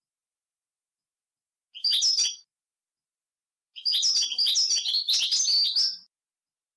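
Wild European goldfinch singing in rapid, high twittering phrases: a short burst about two seconds in, then a longer run of about two seconds.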